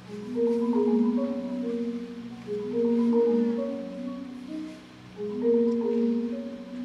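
Marimba One concert marimba played with four mallets: rolled chords in the low and middle register that swell and fade three times.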